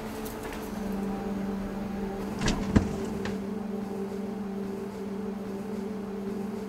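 A steady low hum, with two short knocks about two and a half seconds in.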